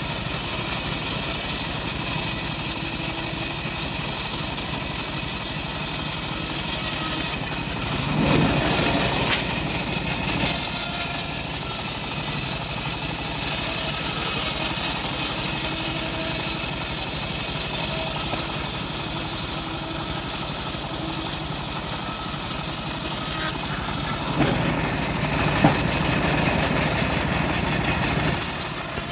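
Stihl MS381 two-stroke chainsaw running steadily at low speed, with two louder stretches of harder running, about eight seconds in and again about twenty-four seconds in.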